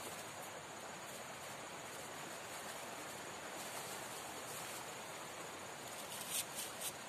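Steady rush of river water with insects chirping high above it, and a few short sharp clicks near the end.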